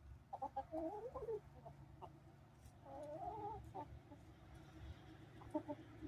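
Barred Plymouth Rock hens clucking as they feed on cracked corn: two longer wavering calls, one about half a second in and one about three seconds in, then a few short clucks near the end.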